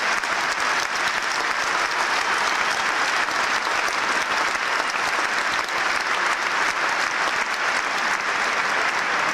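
Large stadium crowd applauding steadily, a sustained ovation that does not let up.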